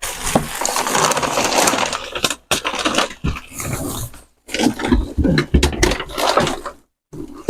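Tap water running and splashing as a blender jar is rinsed, in several stretches with short breaks.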